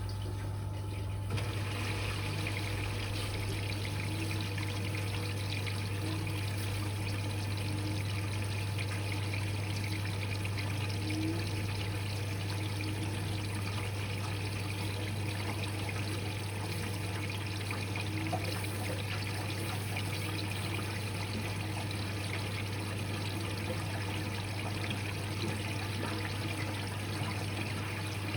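Electrolux Quickwash commercial washing machine taking in water for a rinse: water rushes and trickles into the drum from about a second in, over a steady low hum.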